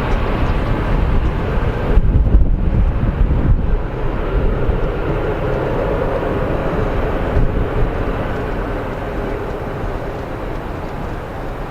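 Jet engines of a departing Airbus A320 at takeoff power, a loud, deep, steady roar that slowly fades over the last few seconds. Gusts of wind strike the microphone about two to four seconds in.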